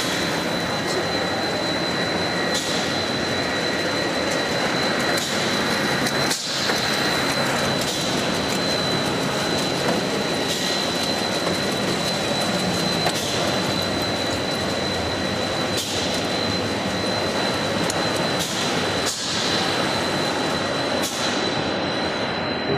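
Machinery of a bugle-chip snack production line running: a loud, steady mechanical noise with a constant high-pitched whine, briefly dipping now and then.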